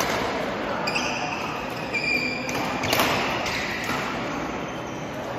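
Badminton rally: rackets striking the shuttlecock in several sharp hits, the loudest about three seconds in, with short shoe squeaks on the court floor. The sounds echo in a large hall.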